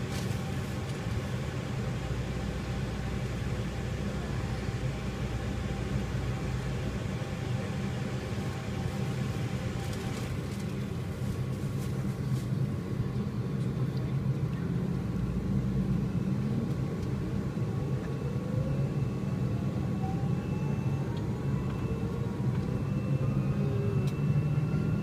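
McDonnell Douglas MD-80 jet engine starting, heard from inside the cabin: a steady low hum, joined about two-thirds of the way through by rising whines as the engine spools up.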